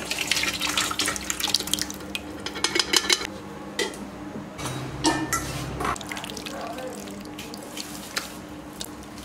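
Thick lentil dal poured from a steel container into a steel bowl, splashing, followed by scattered clinks of steel bowls and pots.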